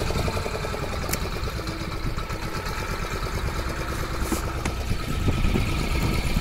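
Fishing boat's engine idling steadily with a fast low pulse while the gill net is hauled in, with a couple of light clicks.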